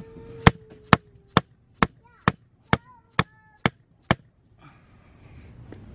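A hand tool chopping into packed dirt beside a brick-lined valve box to widen the hole: nine sharp, evenly spaced strikes, about two a second.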